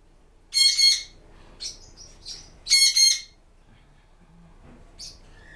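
Caged pet birds calling: two loud, harsh squawks about two seconds apart, with a few short, high chirps between them and another near the end.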